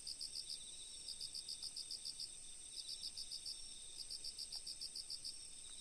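Crickets chirping faintly in short pulsed trills that repeat about every second and a half, over a steady high-pitched hum.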